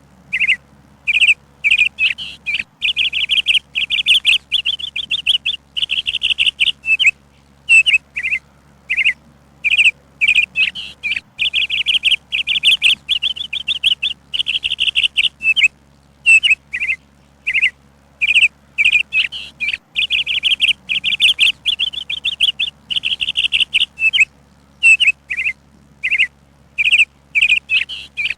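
A songbird chirping: short separate chirps alternate with long runs of rapid trilled notes, the phrase coming round again every eight seconds or so.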